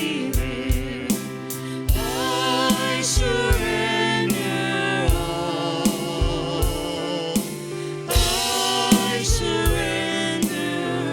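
Church worship music: voices singing long held notes with a band, and a drum kit keeping a steady beat under them.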